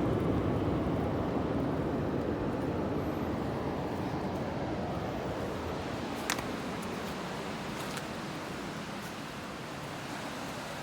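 Ocean surf, a steady rushing that slowly fades, with one faint short tap a little past halfway.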